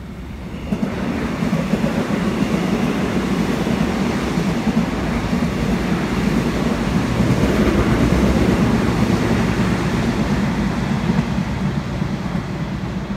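Seoul Line 1 electric commuter train (EMU) passing along the rails, its wheels and running gear giving a steady rumble. The rumble swells about a second in and eases slightly near the end as the train moves away.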